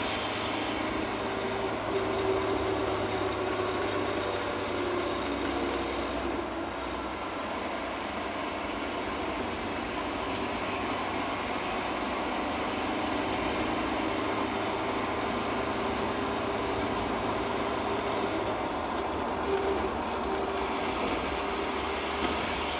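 1997 Ford Ranger driving, heard inside the cab with the rear window open: steady road and drivetrain noise with a whirring whine from the rebuilt rear differential that comes and goes. The owner says such a whine can come from the ring and pinion gears not meshing perfectly.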